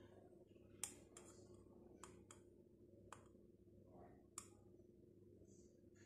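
Faint, scattered clicks of a metal spoon knocking against a bowl and a drinking glass while scooping and tipping dried ginger powder, about six light clinks at uneven spacing over a low steady room hum.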